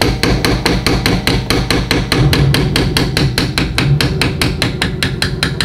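Rapid, even hammer taps, about six a second, on the pinion flange of a Dodge Sprinter's rear differential as it is refitted to the pinion shaft.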